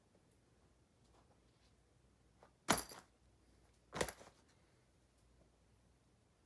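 Two short drops about a second and a half apart, with a light jingle: running shoes landing on a backpack on a bed.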